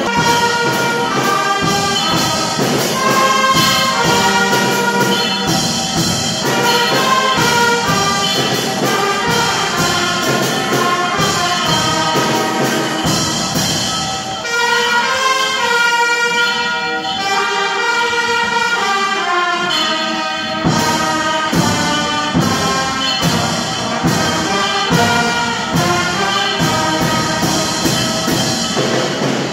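Instrumental music with brass leading a melody over an orchestral backing.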